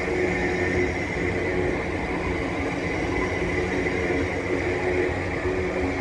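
Class 345 Aventra electric multiple unit passing at steady speed: a continuous rumble of wheels on rail with a steady whine over it.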